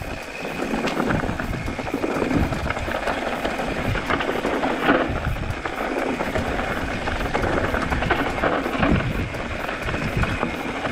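Mountain bike clattering and rattling as it rolls down a loose, rocky trail, tyres crunching over stones, heard close up from a handlebar-mounted camera.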